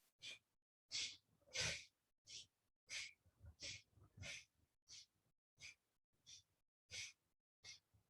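A woman's rapid, rhythmic yogic breathing at a breath-of-fire pace, alternating inhales and exhales, each breath short and sharp, about one and a half breaths a second.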